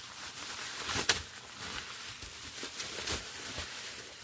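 Wrapping being pulled off a packaged set of diecast model cars by hand: continuous rustling with small crackles and one sharp snap about a second in.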